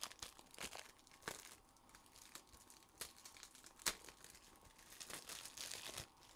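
Faint crinkling and rustling of plastic card sleeves and a rigid card holder being handled, a thick patch card being fitted into a 180-point holder, with a few sharp clicks.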